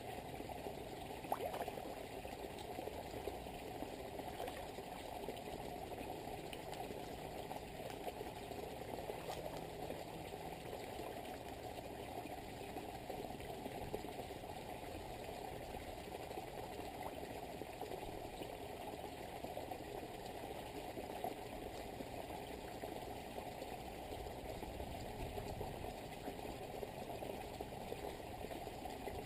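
Small pond waterfall splashing steadily into the water, a dull, even rush of water. A single faint click about a second in.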